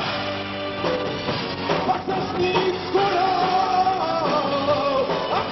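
Live rock band music: electric guitar and drums with singing.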